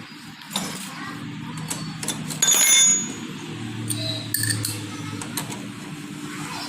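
Metal tools and parts clicking and tapping against each other, with one louder ringing metallic clank about two and a half seconds in.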